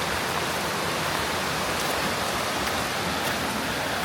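Rushing river water below the trail, a steady even rush with no change.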